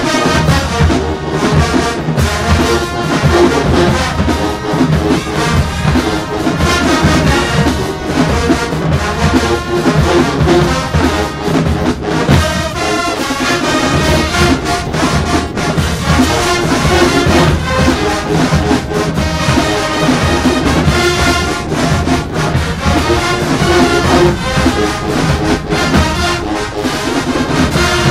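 A marching band playing loud brass-led music, with trombones and trumpets over a steady drumline beat.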